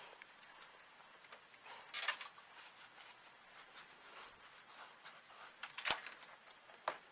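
Faint rustling of power-supply cables and short plastic clicks and knocks as a power connector is worked into its socket inside a PC case, without seating properly. The sharpest click comes near six seconds in, with another about a second later.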